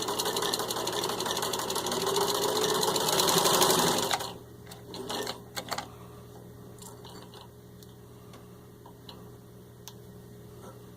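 1949 Singer 15-91 sewing machine, freshly serviced with a rebuilt motor, running and stitching through six layers of denim, then stopping abruptly about four seconds in. A few light clicks follow, then only a faint steady hum.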